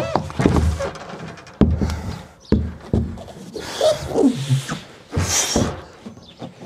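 A large empty plastic water tank being handled and carried in: hollow knocks and thumps, two sharp ones a couple of seconds in, then two hissing scrapes of the plastic against the surroundings.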